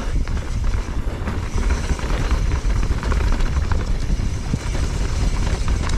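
Wind buffeting the camera microphone in a heavy low rumble, over the noise of a mountain bike's tyres rolling fast on a dirt and leaf trail, with small rattles and ticks from the bike.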